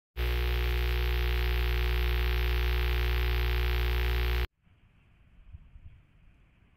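A loud, steady hum with many held overtones and a strong low end, cutting off abruptly about four and a half seconds in; faint background noise follows.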